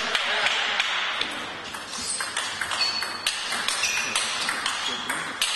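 Table tennis ball clicking off bats and the table in quick, irregular succession during a rally, over a steady background hum of the hall. A couple of brief high squeaks come about three and four seconds in.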